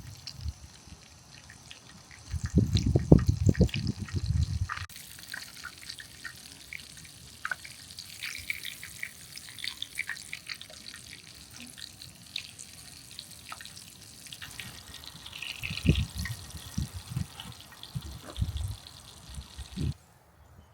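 Breaded chicken cordon bleu frying in hot oil in a pan: a steady sizzle with many small crackles and pops. Low thuds come in two spells, a few seconds in and again near the end.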